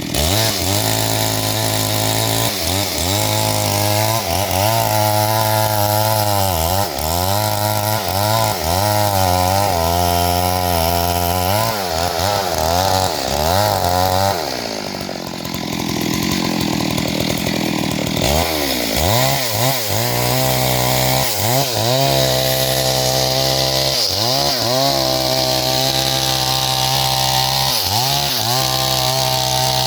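Chainsaw running at full throttle and cutting into a tree, its pitch wavering up and down as the chain bites into the wood. About fifteen seconds in the engine drops back for a few seconds, then revs up again and carries on cutting.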